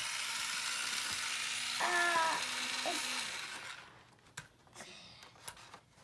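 A toy power tool's small motor whirring steadily, then cutting off nearly four seconds in, followed by a few light clicks.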